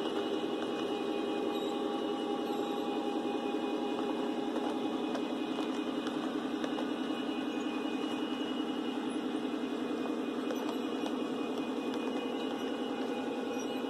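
Loaded grain hopper cars of a Lionel O-gauge model train rolling along the track, a steady rumble of metal wheels on the rails.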